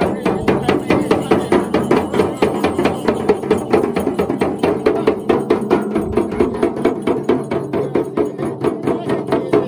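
Two Bonpo dyangro, handled frame drums, beaten with curved sticks in a fast, steady rhythm of several beats a second.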